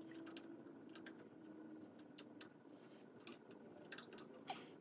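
Near silence with faint, scattered small clicks and ticks as the radial arm saw's motor is worked by hand on its mount against a steel square, and two slightly sharper clicks near the end. A faint low hum fades out about halfway.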